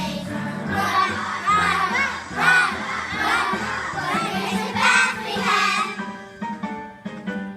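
A group of children singing a song together with a musical accompaniment. The singing stops about six seconds in, and the accompaniment carries on alone with a few sparse notes.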